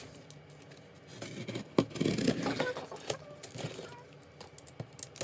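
Cardboard shipping box being handled: scattered scrapes, rustles and light knocks, with a sharp knock and a burst of rustling about two seconds in.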